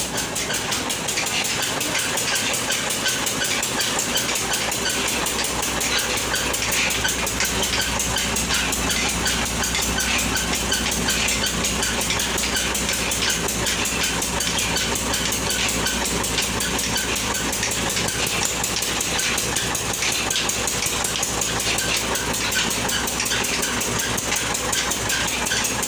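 Electric flour mill (chakki) running steadily, with a fast, even clatter over a low hum.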